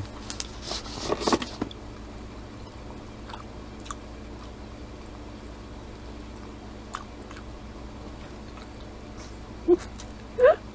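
Chewing and biting of pizza, loudest in the first second and a half, then a few faint mouth clicks over a steady low hum; a voice begins near the end.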